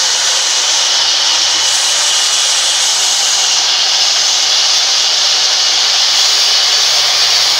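Sawmill band saw running and cutting lengthwise through a large log: a loud, steady, high-pitched rushing noise.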